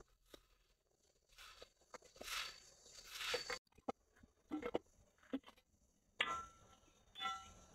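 A straw broom swishing over dirt in two long strokes, then a hoe scraping and striking the soil in separate short knocks, the sharpest about six seconds in.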